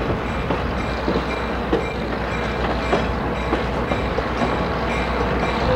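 Skunk Train passenger train running along the track, heard from aboard: a steady rumble with irregular clicks of the wheels over the rail joints.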